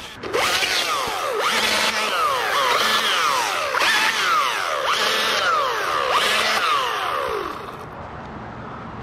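Chainsaw revved in repeated bursts, its pitch jumping up sharply and sagging back about once a second, then dropping to a lower, steadier running level near the end.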